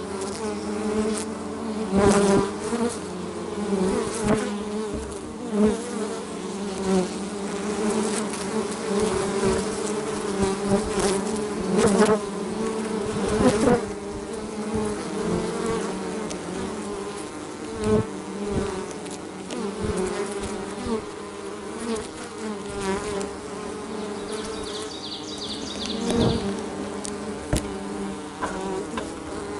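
Feral honey bees buzzing thickly at their nest entrance, many wingbeat tones overlapping in a steady hum, swelling louder every few seconds as bees fly right past the microphone.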